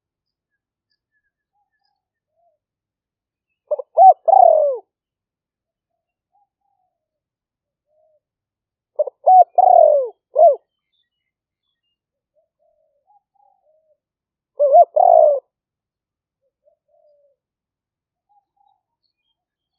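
A spotted dove cooing: three short phrases about five seconds apart, each a couple of quick notes followed by a longer falling coo. It is a decoy bird's advertising call, used to lure wild doves.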